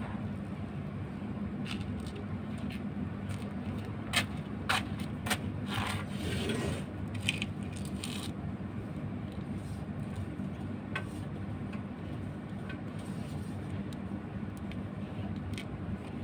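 Hands wrapping a cloth bandage around a kitten's leg: scattered light scrapes, rubs and clicks, most of them between about four and eight seconds in, over a steady low hum.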